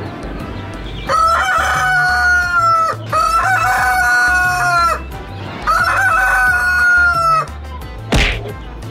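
A young light Brahma rooster crowing: three long, level, drawn-out calls of about two seconds each. A brief sharp sound follows near the end.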